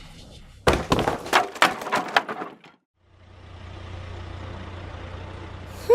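Cartoon sound effects: a quick run of clattering knocks lasting about two seconds, then after a brief gap a steady low vehicle rumble.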